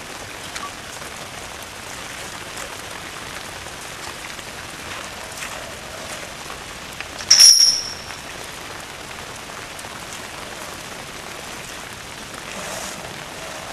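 Steady rain falling on wet concrete and pool water. About halfway through comes a brief, sharp, high-pitched squeak, the loudest sound.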